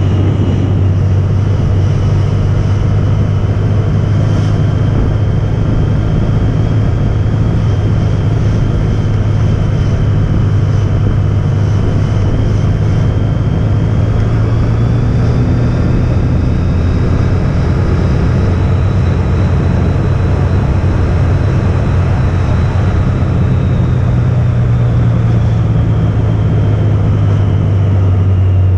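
Honda ST1300 Pan European's V4 engine running at a steady road cruise, mixed with wind and road noise on the bike-mounted camera. Its pitch rises a little around the middle and eases off again near the end.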